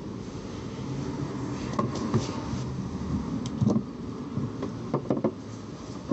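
Scattered short clicks and knocks from the unboxed figure and its packaging being handled, over a steady low background hum.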